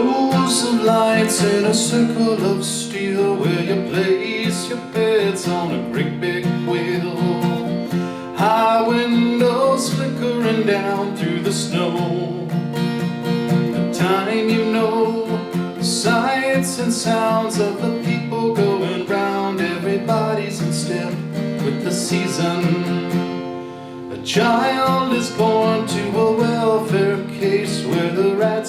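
Acoustic guitar being strummed and picked, playing a light country-rock song.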